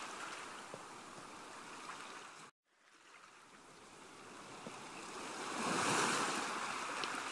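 Surf-like wash of noise from a TV show's title sting. It drops to silence about two and a half seconds in, then swells again and is loudest about six seconds in.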